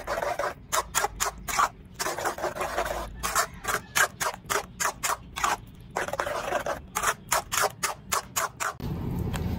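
A spoon scraping against a metal pan while stirring thick spaghetti sauce with sliced hotdogs: a rapid run of scrapes, about three a second. Near the end the scraping stops and a steady low rumble takes over.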